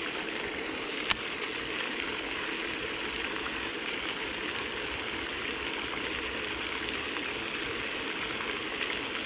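Steady rushing splash of a pond fountain spraying water into the pond, with a single sharp click about a second in.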